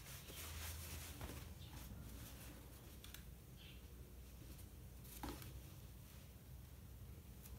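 Faint rustling of cotton fabric being folded and positioned under a sewing machine's presser foot, with a couple of soft clicks, over a steady low hum.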